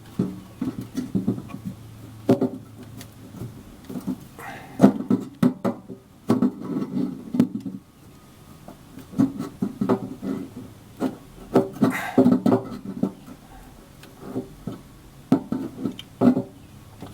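Pliers working a steel cotter pin: irregular clicks and scrapes of metal on metal as the pin is straightened and pulled from the fuel valve's control rod.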